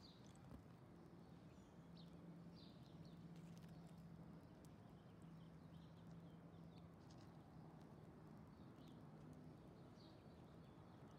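Near silence: faint outdoor background with a steady low hum and scattered faint, short high chirps and ticks.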